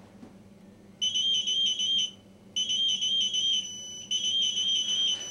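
An electronic alarm going off about a second in: a high, rapidly pulsing beep in bursts of about a second with short gaps between them.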